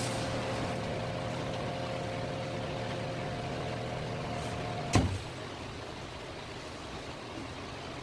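A machine motor running with a steady hum, which stops with a sharp clunk about five seconds in.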